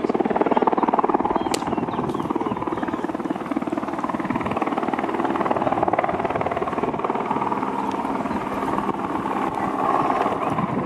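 Helicopter hovering overhead: a steady, rapid beating of its rotor that holds an even level.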